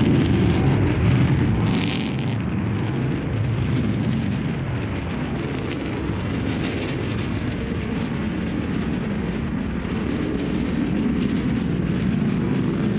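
New Shepard rocket's BE-3 liquid-hydrogen/liquid-oxygen engine burning at full thrust on ascent, heard from the ground as a deep, noisy rumble. Sharper crackles stand out about 2 and 6.5 seconds in, and the rumble grows slightly fainter after the first couple of seconds as the rocket climbs away.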